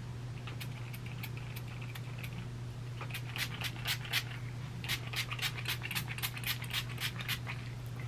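Quick scratchy brushing strokes of a small edge brush laying hair down along the hairline. They come a few times a second and grow faster and louder from about three seconds in, over a steady low hum.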